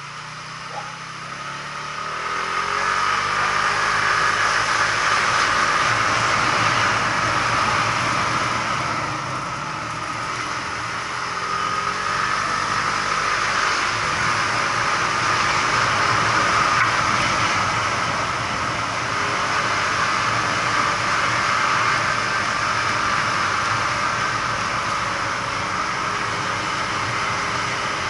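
Motorbike engine pulling away and rising in pitch over the first few seconds, then running at riding speed under a steady rushing noise, with small rises and falls in pitch.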